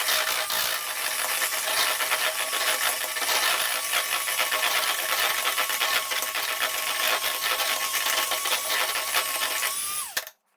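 Electric mixer running steadily with a constant motor whine, beating butter, sugar and eggs into a cake batter; the whine drops and the motor cuts off near the end.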